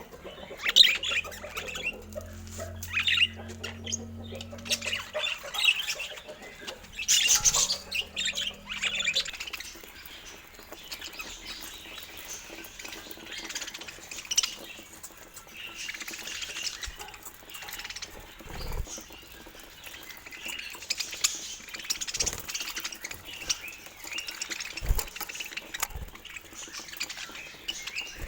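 Budgerigars chirping, chattering and squawking in a stream of short high calls, with a few soft knocks in the second half.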